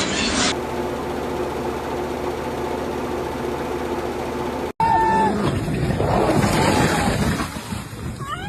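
A motor running steadily, cut off abruptly about halfway through, followed by rougher machine and work noise with a couple of short high tones.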